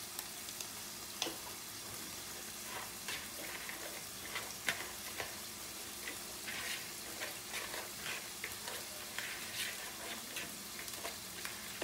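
Ground beef and onions sizzling steadily in a skillet, with irregular sharp crackles throughout. Shredded cabbage and carrots are being tossed by hand in a plastic mixing bowl.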